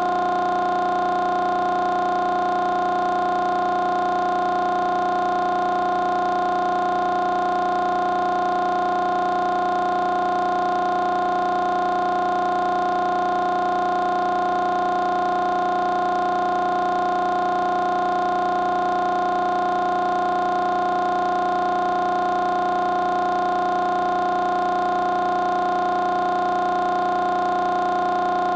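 A steady, unchanging drone of several held tones at different pitches, at a constant level throughout.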